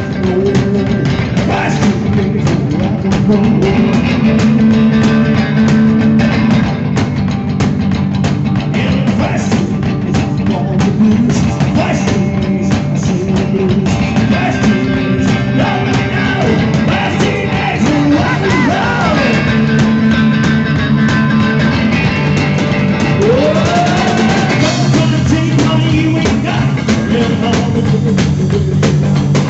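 Rock and roll band playing live: drum kit, hollow-body electric guitar and upright bass, with a man singing.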